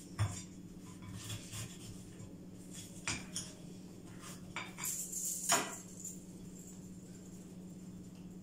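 China plates and cutlery clinking and knocking on a counter as sandwiches are put together: a few scattered clicks, the loudest cluster about five seconds in, over a steady low hum.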